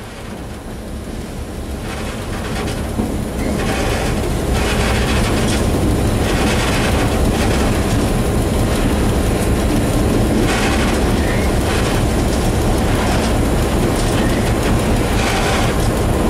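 Class 661 diesel locomotive running, heard from the cab: the engine noise grows louder over the first four seconds and then holds steady and loud under power. Wheels clack over rail joints every second or few.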